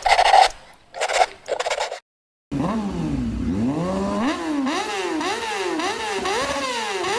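A motorcycle engine revved in quick repeated throttle blips, its pitch rising and falling about two and a half times a second. Before it come a few short noisy bursts and a half-second gap.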